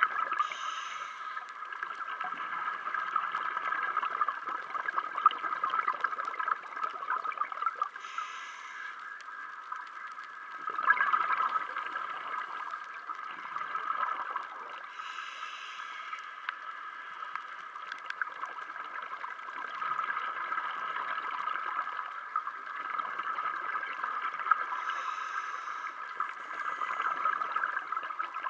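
Scuba diver's regulator breathing heard underwater: a brief hiss of inhalation every several seconds, with gurgling exhaled bubbles in between, over a steady underwater hiss.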